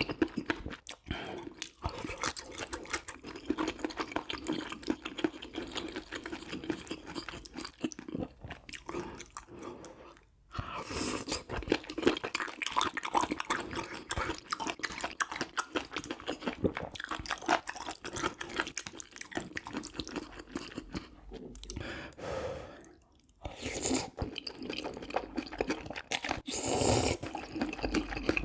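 Close-miked eating: a person chewing and crunching food with wet mouth clicks and smacks, pausing briefly twice.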